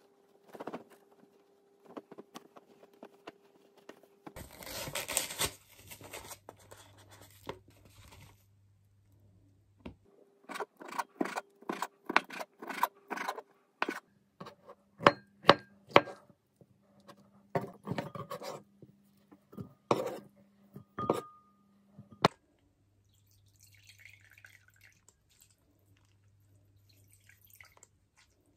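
A kitchen knife chopping food on a cutting board: a long run of sharp knocks, roughly one or two a second, that stops abruptly. Before it, about four seconds in, a brief rustle of clothes being stacked.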